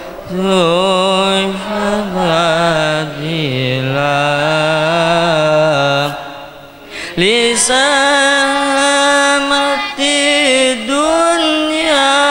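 Young male voice chanting Arabic devotional verses into a microphone, in a melismatic style with long held, wavering notes. About six seconds in it drops away briefly, then resumes at a higher pitch.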